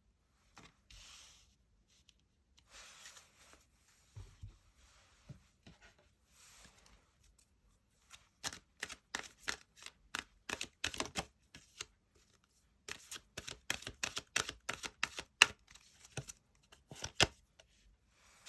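Tarot cards being handled and shuffled: soft sliding swishes at first, then two runs of rapid crisp card flicks and taps, starting about eight seconds in and again about thirteen seconds in.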